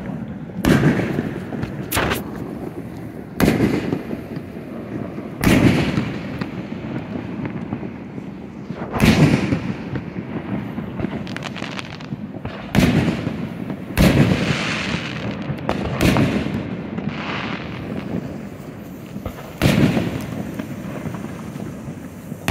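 Aerial fireworks shells bursting in a display: about ten loud booms at uneven intervals, each dying away in a rumbling echo over a second or two.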